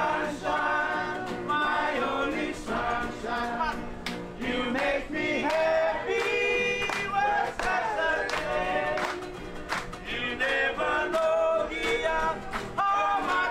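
Several men singing together, accompanied by strummed acoustic guitars and ukuleles: a live acoustic string-band performance.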